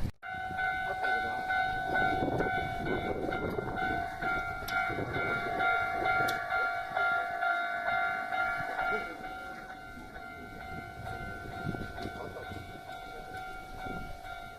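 Railway level-crossing alarm ringing with a steady, repeating electronic tone while a train runs through, its wheels rumbling and clattering. The train noise is loudest for the first nine seconds or so, then eases while the alarm keeps ringing.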